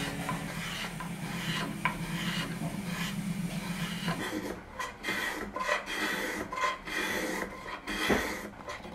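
Small Japanese hand plane (kanna) shaving the curved wooden back of a chair: scraping strokes run together at first, then from about four seconds in come quicker, shorter strokes, about three a second.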